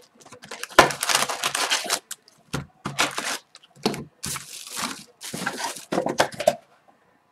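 Cardboard Upper Deck Series 1 hockey card retail box torn open: a long tearing sound about a second in, then several shorter rustles and scrapes as the wrapped card packs are pulled out and stacked.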